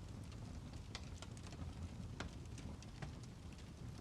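Steady rain falling, with scattered sharp drops pattering close by.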